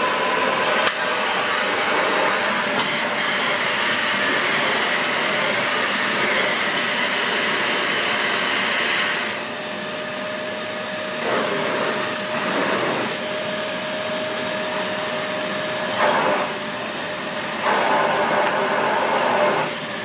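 Dyson Big Ball Animal cylinder vacuum cleaner running on carpet with its turbo-brush floorhead, a steady motor drone with a constant hum. About nine seconds in the sound drops and turns duller, then swells briefly a few times.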